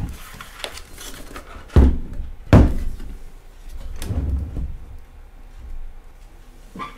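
Metal vacuum-tube amplifier chassis being turned over by hand and set down on a wooden tabletop: a few dull thumps and knocks, the two loudest close together about two seconds in, with smaller handling rattles between.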